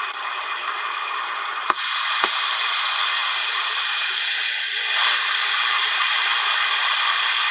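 Realistic TRC-449 CB radio receiving on AM, its speaker giving a steady hiss of static with no voices. Two sharp clicks from the radio's controls come a little under two seconds in and again about half a second later.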